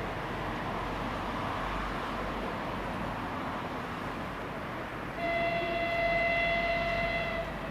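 A 2TE116 diesel locomotive approaching with its engines running in a steady rumble, then one horn blast of about two seconds, starting a little after five seconds in. The horn is the loudest sound.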